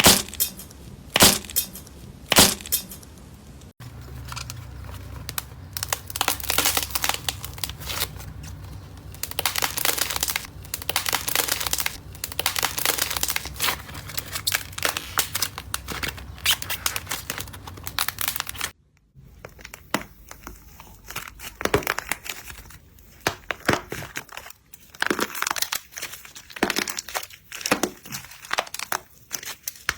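Slime being squeezed, pressed and stretched by hand close to the microphone, a dense stream of sticky clicks and crackles. Three louder snaps open it, and the texture of the sound changes abruptly at about four seconds and again near nineteen seconds.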